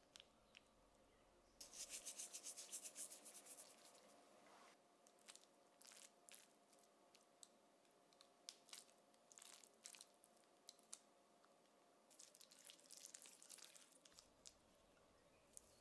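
Soft, wet crackling and small clicks of thin raw potato slices being handled and laid in a ceramic baking dish, then a spoon pressing and spreading sautéed spinach and onion over them. It comes in two dense runs of rapid crackles with scattered single clicks between, all quiet.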